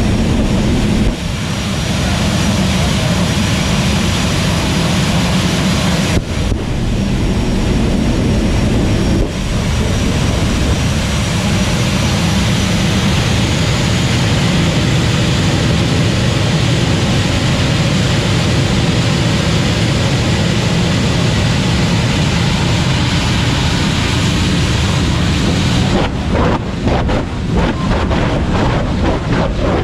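Turbine jet engines of two jet-powered drag cars running at the starting line: a loud, steady rushing noise with a thin high turbine whine. Near the end the sound turns uneven and gusty.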